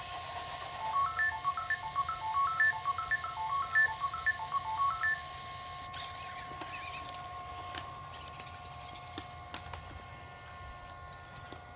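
Sony Aibo ERS-111 robot dog playing a quick electronic melody of short beeps at changing pitches, about four notes a second, over a faint steady hum. The beeps stop about five seconds in, leaving a few faint clicks as the robot moves its legs.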